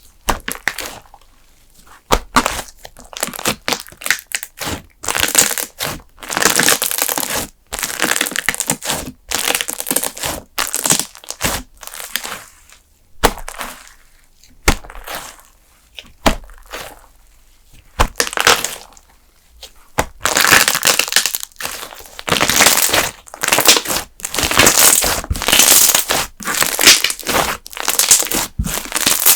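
Thick custard-base slime squeezed and pressed by hand, crackling and popping in repeated bursts with short pauses between.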